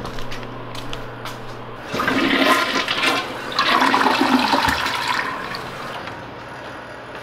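A toilet flushing: water rushes in two surges for about three seconds, then eases off.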